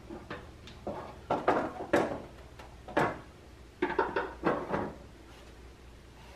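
Hard plastic trim parts of a 2010 Ford Taurus SHO front bumper cover and grille bracket knocking and clicking as they are handled and pressed into place: irregular clusters of sharp clacks, the sharpest about three seconds in.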